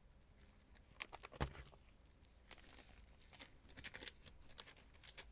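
Gloved hands handling things at close range: scattered soft crinkles and small clicks, with one louder knock about one and a half seconds in and a busier run of crinkling near the end.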